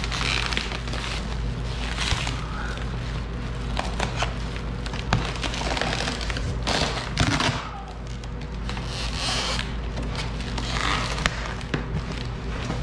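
A cardboard box being slit with a box cutter and torn back by hand: an irregular run of crackles, scrapes and tearing.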